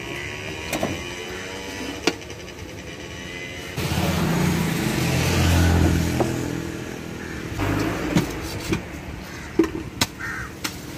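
A motor vehicle passing close by, its engine swelling and fading over about three and a half seconds. Sharp knocks of a heavy knife striking a wooden chopping block come once early and several times near the end.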